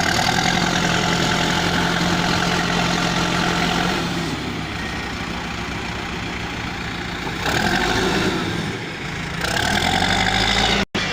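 Engine of a heavy earthmoving machine running with a steady hum. The hum shifts in pitch and loudness a few times and cuts out for an instant near the end.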